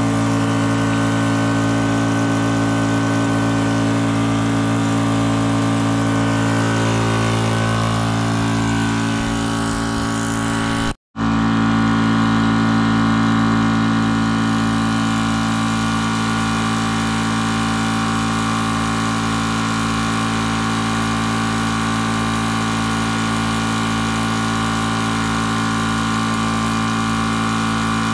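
Portable 4000 psi (300 bar) electric high-pressure air compressor running steadily with a constant humming drone while filling a scuba tank. The sound cuts out for an instant about eleven seconds in, then carries on unchanged.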